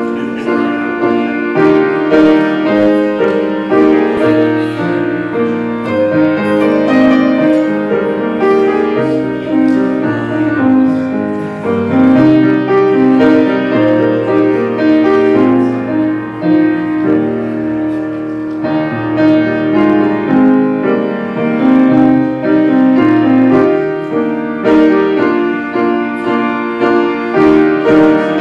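Grand piano playing a slow piece of held chords under a melody.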